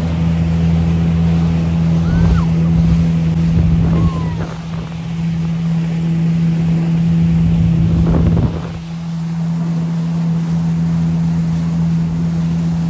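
Jet ski engine running steadily under way, with wind and water noise; the sound drops briefly about four seconds in and again near nine seconds.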